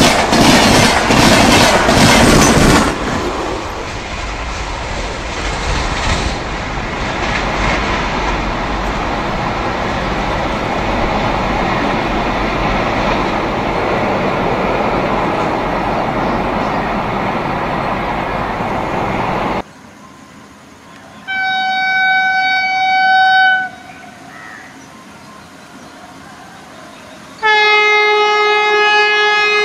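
An Indian Railways train passing at speed. Its wheels clatter rapidly over rail joints for the first few seconds, then the coaches go by in a steady rush that cuts off abruptly. A locomotive horn then sounds two blasts: a short one of about two seconds, and near the end a second, lower-pitched blast.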